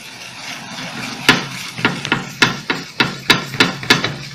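Metal hair clipper blade being sharpened in small circles on wet 1500-grit sandpaper. A faint rubbing comes first; from about a second in, a quick uneven series of sharp scraping strokes follows, about three a second.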